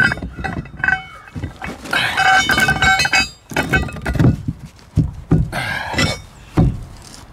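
Cordless drill whining in short bursts, the longest about two to three seconds in, drilling through plywood. In the second half come several knocks and thuds as a steel bracket is handled against the plywood.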